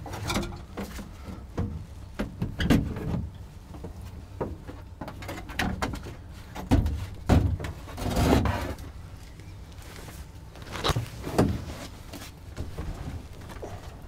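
Engine cover panels in a Renault Goelette truck cab being lifted out and handled: a string of knocks and clunks with some scraping. The loudest clunks come near the middle and again a few seconds before the end.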